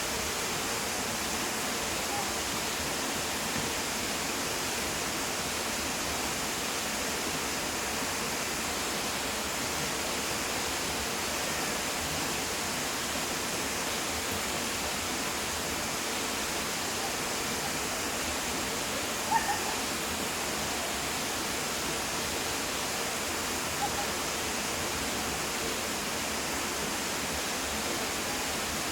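Waterfall rushing in a steady, even roar. A short sharp sound stands out about two-thirds of the way through, and a smaller one a few seconds later.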